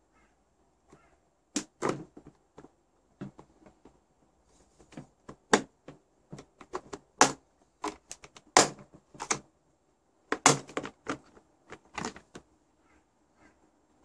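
Flat screwdriver prying the plastic base off a drip coffee maker: irregular sharp clicks and knocks of the screwdriver on the plastic and the snap-fit clips letting go, the loudest about halfway through and again about three quarters through.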